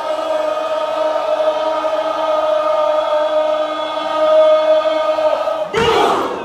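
A large crowd holding one long sung note together, then breaking into loud shouting and cheering near the end.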